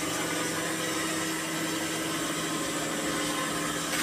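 Singer sewing machine's electric motor running with a steady hum.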